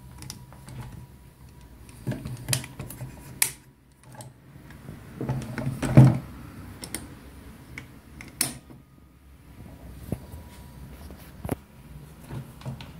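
Bipod of a full-metal replica SPR rifle being worked by hand and folded: scattered metal clicks, knocks and rattles of the legs and their joints, the loudest knock about six seconds in.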